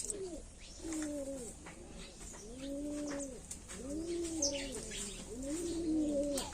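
Doves cooing over and over: soft, low coos that rise and fall in pitch, several overlapping, one every second or so, with faint small clicks underneath.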